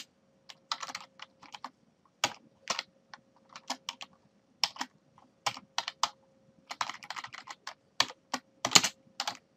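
Typing on a computer keyboard: irregular keystrokes in short runs separated by brief pauses.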